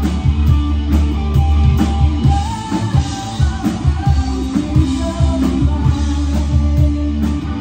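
Live rock band playing loudly: electric guitars over a drum-kit beat, with a heavy bass low end.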